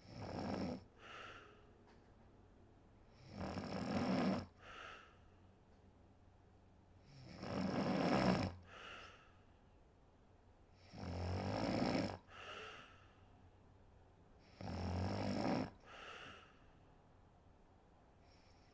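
A woman snoring in deep sleep, in a slow, regular rhythm: five snores about every four seconds, each a longer, louder snore followed by a short softer one.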